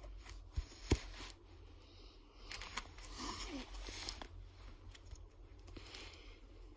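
Plastic sleeve pages of a card binder being handled and turned, crinkling and rustling in short spells, with a sharp click about a second in.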